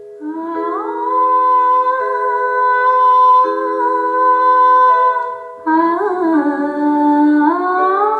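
Music from the opening of a song: sustained chords under a long, held melody line that slides up into its notes about a second in and again about six seconds in.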